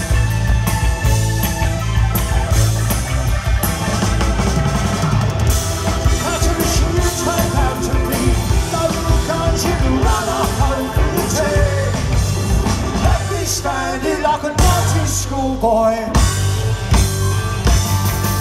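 Live rock band playing: drum kit, electric guitars, bass and keyboards, heard loud through a phone's microphone from within the crowd.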